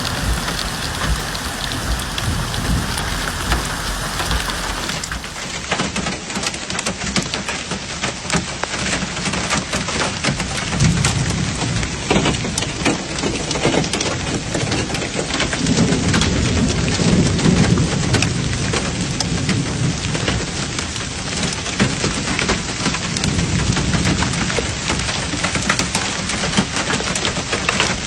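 Heavy rain pouring down, with a dense patter of drops striking close by and deeper rumbling swells around the middle.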